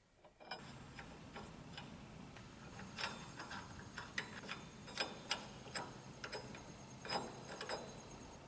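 Light, irregular metallic clicks and taps of hand tools working on the rear hub bearing bolts of a truck, over a low steady hum.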